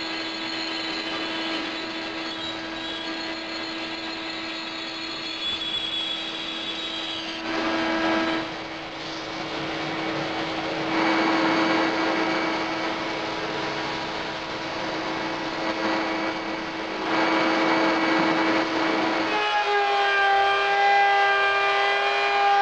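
Woodworking power tools at work on a pine 2x4 bracket in turn: a bandsaw running and cutting its curved outline, then a sander smoothing the edges with a steady machine hum. Near the end a router table with a round-over bit takes over, with a steadier, higher whine as it rounds over the edges.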